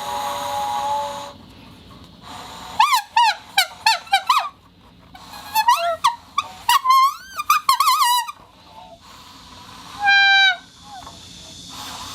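A vibrating rubber plate whistle squealing: a held tone at the start, then clusters of quick wavering squeaks that bend up and down in pitch, and a short steady tone about ten seconds in.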